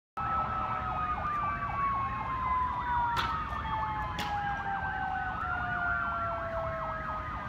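Several emergency vehicle sirens sounding at once: a fast warbling yelp over slower wails whose pitch slowly falls. Two sharp clicks a second apart near the middle.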